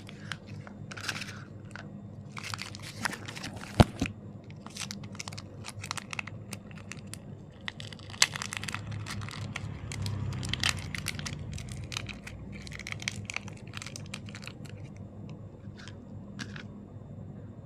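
Crinkling and tearing of a Kinder Joy egg's plastic wrapper, with irregular plastic clicks and snaps as the egg and its toy capsule are handled. There is a sharp loud click about four seconds in and another near the middle.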